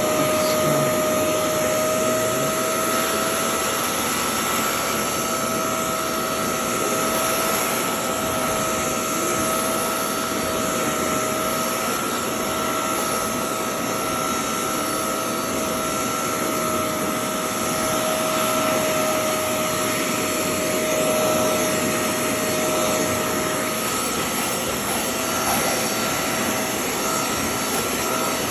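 Hoover Clean Slate portable carpet spot cleaner running steadily: its suction motor gives an even whine over a hiss of rushing air.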